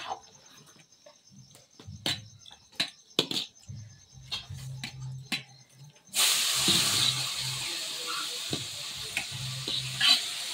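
Metal ladle clinking and scraping against a large steel pot as biryani is stirred. About six seconds in, a loud, steady hiss starts abruptly and keeps going.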